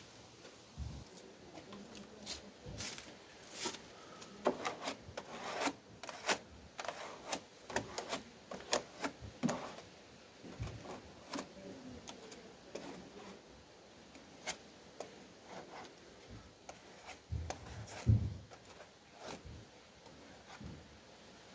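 Hand spreader scraping and smoothing green body filler over a car's sill panel: a run of short, irregular scrapes, densest in the first half, with one louder knock near the end.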